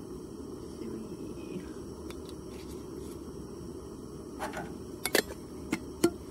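Canister-top propane camp burner running with a steady hiss under a pot of water heating up. In the last two seconds or so, a handful of sharp metal clinks as a stainless mug and coffee press are handled.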